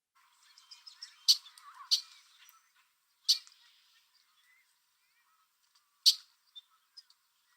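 Red-winged blackbird giving short, sharp calls: four loud ones spaced unevenly, with fainter chirps in between.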